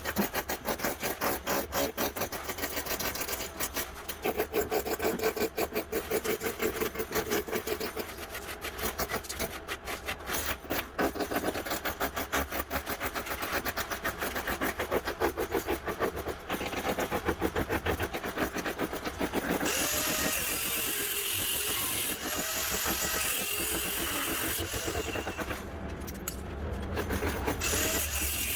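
Rapid, repeated rasping strokes of a tool working on wood as a floor is torn up. After about twenty seconds the strokes give way to a steadier, smoother rasp with a faint high tone in it.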